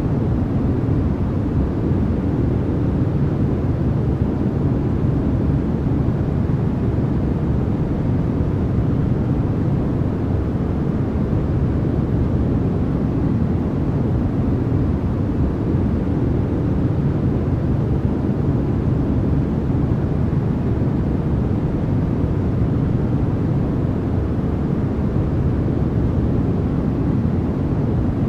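Steady white-noise sleep track: an even, unchanging rushing noise, deep and weighted toward the bass.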